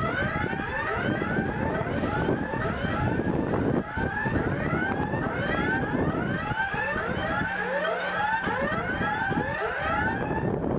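Alert siren sounding a fast, repeating rising yelp, several sweeps a second, that starts abruptly and stops near the end: the scramble alarm sending tanker crews to their aircraft.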